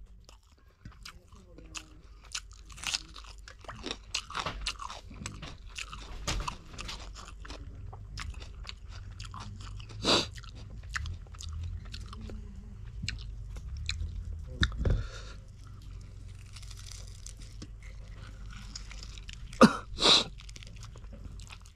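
Close-up chewing and biting of a person eating fish curry and rice by hand: a steady run of short mouth clicks and smacks, with a few louder bites about ten seconds in, about fifteen seconds in, and twice near the end.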